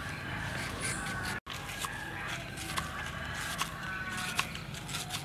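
A kitchen knife paring and slicing a green banana on a wooden chopping board. The blade scrapes along the fruit, then the slices come in a string of separate sharp taps as it cuts through onto the board, roughly one every half second to second.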